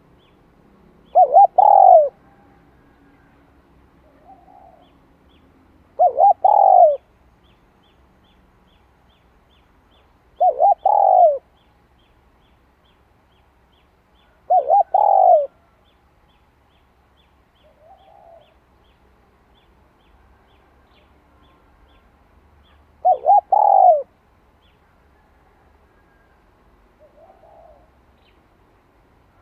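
A caged decoy spotted dove cooing: five loud phrases of about a second each, a few seconds apart, each a quick run of three notes, with fainter short coos between them.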